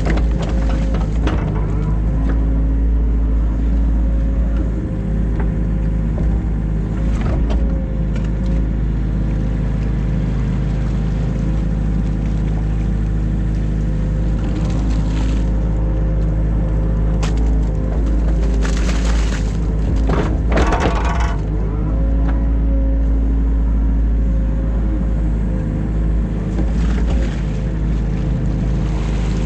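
New Holland Kobelco E50.2 mini excavator's diesel engine running steadily under hydraulic load, with short bursts of scraping and clattering from the bucket digging silt, the longest and loudest about two-thirds of the way through.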